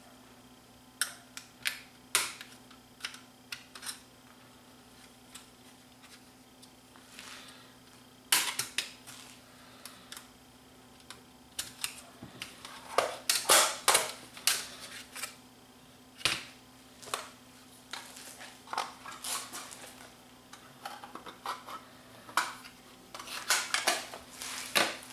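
Plastic clicks, taps and knocks as hands unclip and pull the front panel off a Sony EV-C3 8mm VCR's chassis. The clicks are scattered, with bunches of quick clicks about eight seconds in, around thirteen to fifteen seconds, and near the end.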